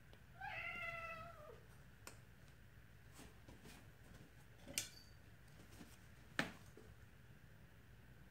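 A domestic cat meows once, a single call about a second long that falls in pitch. A few seconds later come two sharp clicks, about a second and a half apart.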